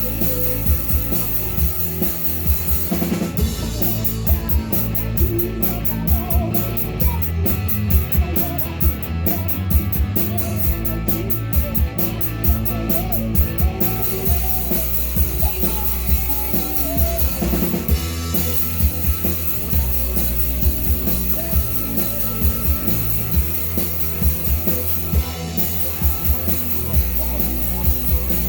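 Live rock band playing a song: a drum kit keeping a steady beat under electric guitar and bass, with some singing.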